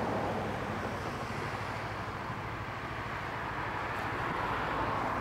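Steady wind rushing over the microphone outdoors, an even hiss without any distinct events.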